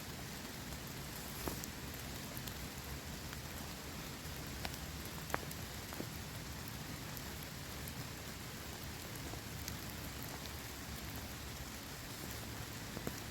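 Steady rain falling, with a few scattered sharp ticks of single drops striking.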